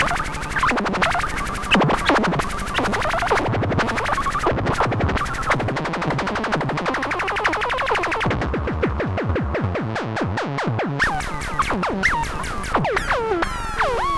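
Buchla and Eurorack modular synthesizers playing an electronic soundscape: a fast stream of clicking pulses with pitches sweeping down and up. Near the end, quick chirping glides rise and fall in the upper range.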